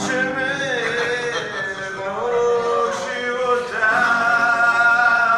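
Male voices singing loudly, drawing out long held notes.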